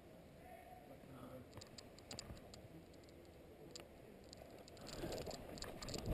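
Faint scattered clicks and rustling in long grass, getting louder near the end as someone starts moving through it.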